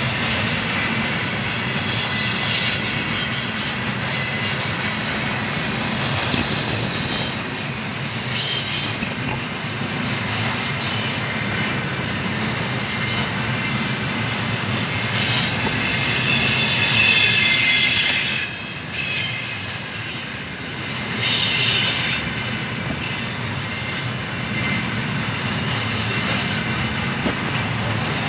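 Loaded container wagons of a long freight train rolling past close by: a steady rumble of wheels on rail, with high-pitched wheel screech rising several times, loudest about two-thirds of the way through.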